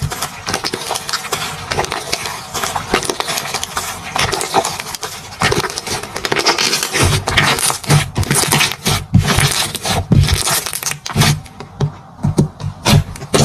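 Slime being squished and worked, making a dense run of small clicks and crackles that get heavier, with soft low thuds, from about halfway.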